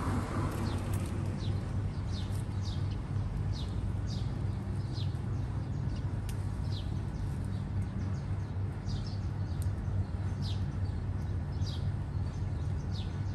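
A bird calling over and over: short, high chirps that drop in pitch, repeated every half second or so, over a steady low hum.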